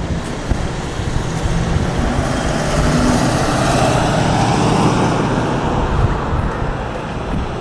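A road vehicle driving past, its noise building to a peak about four seconds in and then fading away.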